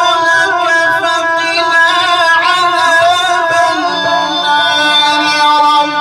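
Male qari reciting the Quran in drawn-out, melodic tajweed through a microphone, holding and ornamenting long notes. About four seconds in, the voice settles onto a lower held note.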